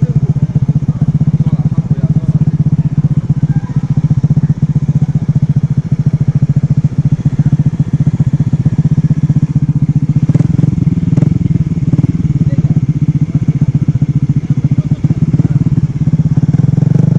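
Small Honda motorcycle engine running steadily at low revs close by. Its note shifts slightly about ten seconds in, with a few clicks.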